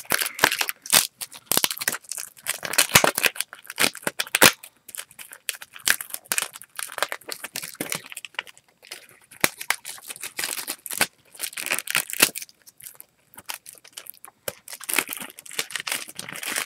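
Thin plastic wrapping around a digital-copy code insert being crinkled and torn open by hand: irregular crackles and rips, with a couple of short pauses.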